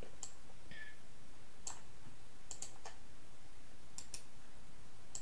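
Scattered sharp computer clicks, about eight of them, several in quick pairs, over a low steady hum.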